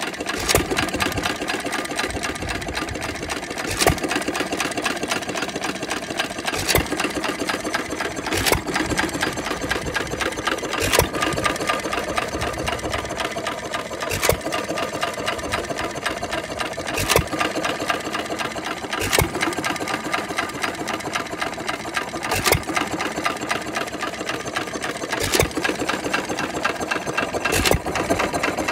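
1-1/2 hp Sandwich Cub hit-and-miss engine running on its own, with a steady mechanical clatter and a sharp single bang every two to three seconds as it fires, coasting on its flywheels between firings.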